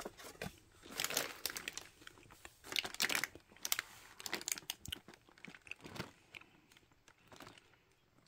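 Crinkling and rustling of a chocolate box's plastic tray and packaging being handled, in irregular short bursts.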